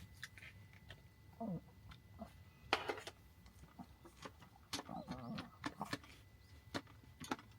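Small dog, a chihuahua, whining in short whimpers while it waits to be fed, among scattered light clicks and clatter.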